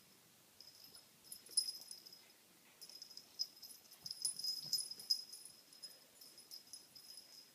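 High-pitched squeaking of a dog's squeaky toy as a puppy chews and carries it, in spells of squeaks, with the loudest a little past the middle and weaker ones near the end.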